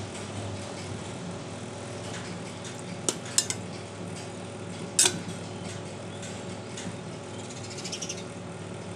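A metal spoon stirring papaya cubes in sugar syrup, clinking sharply against the side of an aluminium saucepan about three seconds in, again just after, and once more about five seconds in, with lighter taps near the end.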